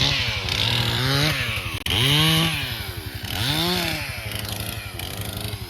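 Chainsaw engine running with the throttle worked, its pitch rising and falling back about four times.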